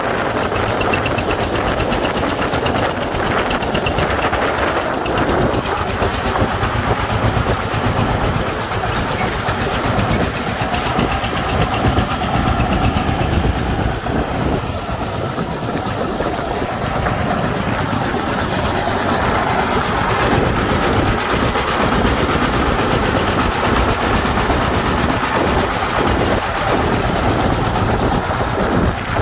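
Heavy diesel engine running steadily at close range, with a fast, dense chugging.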